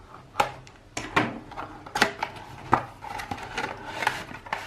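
Hands opening and handling a retail SSD box: about half a dozen sharp clicks and knocks with scraping and rustling of the packaging in between.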